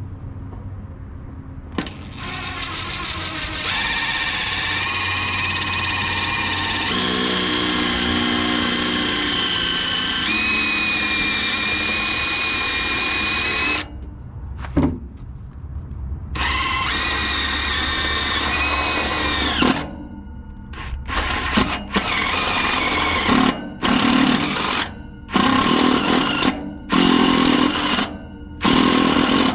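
Power drill with a step drill bit boring through metal: a long steady run of motor whine, a short pause, a second run that winds down in pitch, then a string of short trigger bursts near the end.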